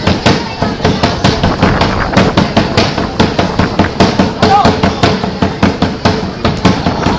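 Rapid, steady drumbeat for a cheer-dance routine, about four sharp hits a second, with voices shouting over it.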